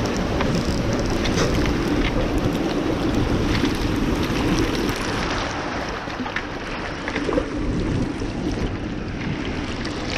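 Fast river current rushing and splashing right at the microphone as water washes over a wading angler, with a hooked coho salmon thrashing at the surface close by. A few short sharp ticks stand out from the steady wash.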